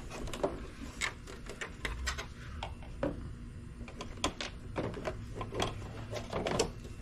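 Hard plastic grille pieces clicking and knocking as the grille insert's tabs are worked loose from the bumper cover by hand. Irregular clicks and small knocks, coming more often in the second half.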